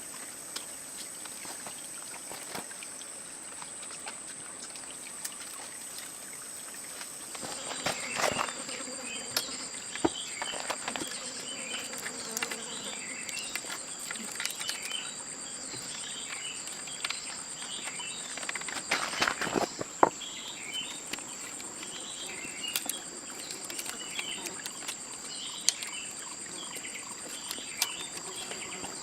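Steady high-pitched insect chorus, like crickets, with scattered clicks and rustling handling noises; from about a third of the way in a second high tone and short repeated chirps join.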